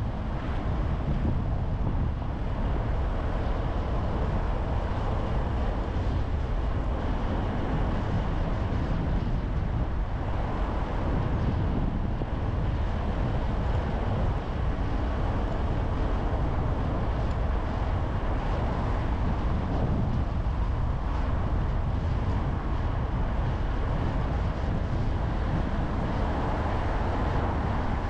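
Steady road and wind noise of a car driving, a low, even rumble with no changes.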